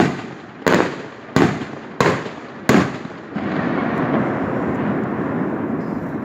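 Five sharp bangs of firecrackers going off in quick succession, about one and a half a second, each dying away briefly. They are followed a little past halfway by a steady rushing noise.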